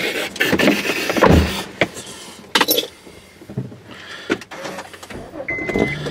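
Person settling into a car's driver seat: rustling of clothing and leather, with several sharp clicks and knocks. Near the end a car's warning chime starts, a steady high beep about half a second long that repeats.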